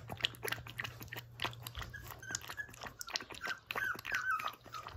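Young puppy lapping milk from a hand-held steel bowl: a quick, irregular run of small wet clicks. A few short, high whimpers come in over the lapping in the second half.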